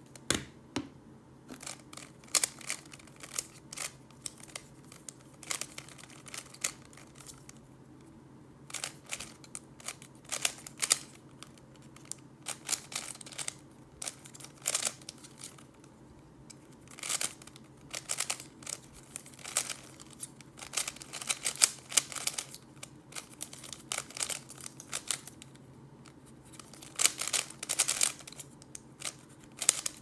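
GAN356 i Carry 2 smart 3x3 speedcube being turned fast by hand: flurries of sharp plastic clicks and clacks from the layer turns, broken by short pauses, with the densest flurries about two-thirds of the way through and near the end. A faint steady low hum sits underneath.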